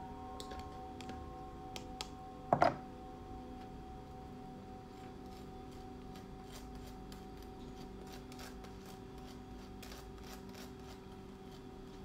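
Fork knocking against a small plastic tub, loudest as a sharp double knock about two and a half seconds in, then faint scraping and ticking of the fork spreading on toast. A faint steady hum runs underneath.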